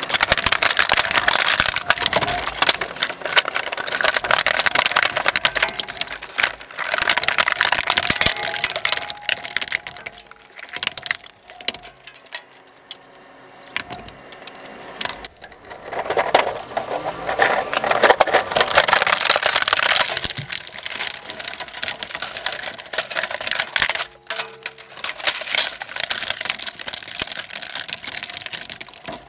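Twin-shaft shredder crunching a hard plastic toy motorcycle between its toothed rotors, a dense run of cracking and snapping plastic. It falls quieter about ten seconds in, then crunches loudly again from about sixteen seconds as more plastic is chewed up.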